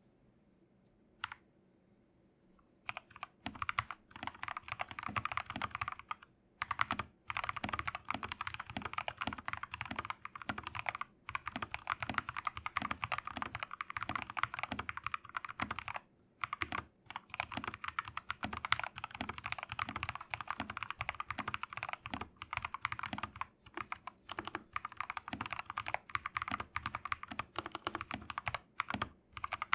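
Fast typing on an MK870 mechanical keyboard with a polycarbonate plate and lubed, filmed Gateron Milky Yellow linear switches under cherry-profile keycaps. A single key press about a second in, then steady rapid keystrokes from about three seconds in, with brief pauses.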